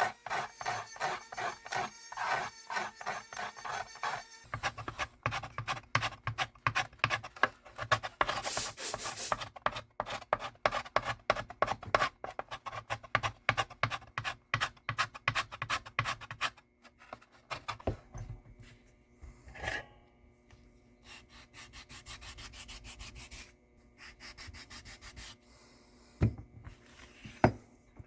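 Quick, repeated rubbing strokes of sandpaper or a file on a wooden mandolin brace, cleaning it up before it is reglued. The strokes stop about 17 seconds in, and after that come only a few scattered handling knocks.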